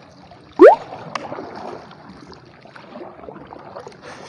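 Faint water noise around a narrow wooden canoe moving on calm water. About half a second in comes one short, loud rising tone, the loudest thing here.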